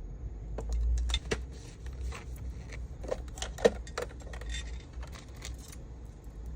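Small hard resin accessories clicking and clinking against each other as they are handled and packed: a scatter of light clicks with one sharper click about three and a half seconds in, over a low steady hum.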